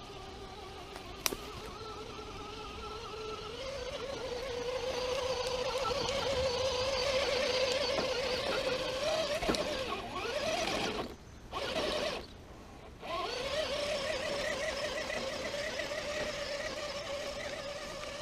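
Electric motor and gear drive of a 1/10-scale RC rock crawler whining as it climbs a dirt slope, the pitch wavering with the throttle. The whine cuts out twice briefly near the middle, then picks up again steadily.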